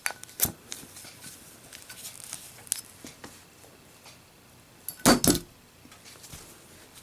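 Copper Zippo lighter being drop-tested: a sharp click about half a second in, then two close knocks about five seconds in.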